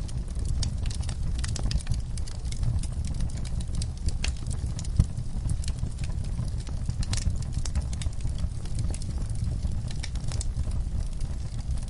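Wood fire burning in a fireplace: a steady low rumble of flames with irregular sharp crackles and pops from the logs, one louder pop about five seconds in.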